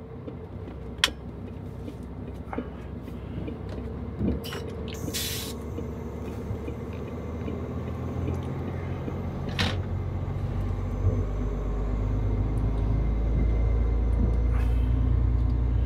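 Truck's diesel engine running steadily, getting louder about two-thirds of the way through, with a few sharp clicks and two short hisses.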